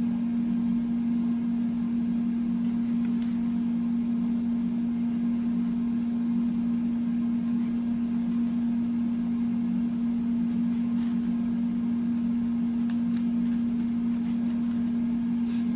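Steady electrical hum from a running kitchen appliance, one even low tone, with a few faint knife taps as a nori roll is sliced on a plastic cutting board.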